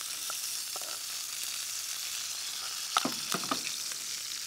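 Salmon fillets sizzling in hot oil in a pan while a spoon bastes them with the oil and thyme. A few sharp clinks of the spoon against the pan come about three seconds in.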